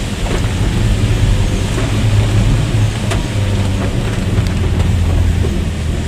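Car interior noise while driving: a steady low engine and road drone, with rain on the car and a few light ticks.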